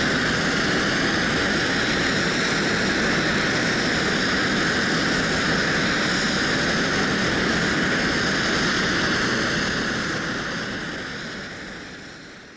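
Twin-engine jet airliner climbing out after takeoff, its engines giving a steady jet roar at climb power. The noise fades away over the last few seconds.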